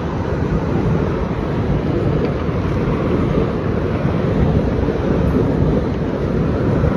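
VIA Rail passenger train's stainless-steel cars rolling along the track below, a steady low rumble mixed with wind on the microphone.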